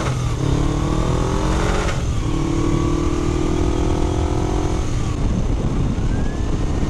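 Motorcycle engine accelerating through the gears: the revs climb, drop at a shift about a third of a second in and again about two seconds in, then climb more slowly until the rider eases off about five seconds in. Near the end a faint siren begins to rise.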